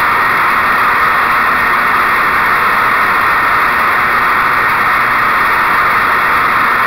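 Wright Stander stand-on mower running steadily as it drives over and cuts through dry fallen leaves; its Kawasaki FS600V engine and spinning blades make a loud, even rush that does not change.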